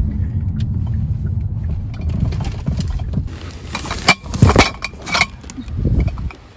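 Low rumble inside a car, then a plastic bag of empty milk bottles being handled: the bag crinkles and the bottles knock and clink together, loudest about four to five seconds in.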